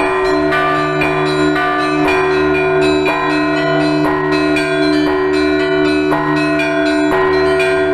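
Russian Orthodox church bells ringing. Small bells are struck in a rapid run, about three strokes a second, over the steady hum of the larger bells.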